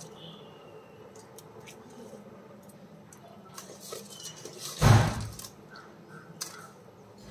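Large steel stockpot of water at a rolling boil, a steady low bubbling; a single heavy thump about five seconds in, with a few faint clicks around it.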